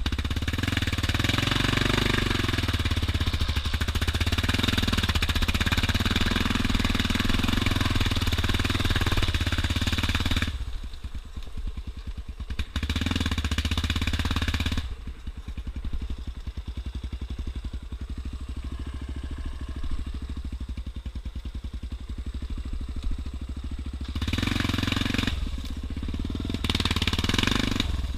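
Yamaha Raptor 350 quad's single-cylinder four-stroke engine working hard for the first ten seconds or so. It then eases to low revs, with a short burst of throttle midway and two more near the end.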